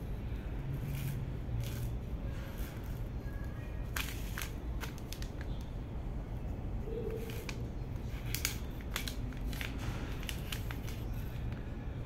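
Graphite pencil scratching on notebook paper: scattered short strokes as words and a simple sketch are drawn, over a steady low background rumble.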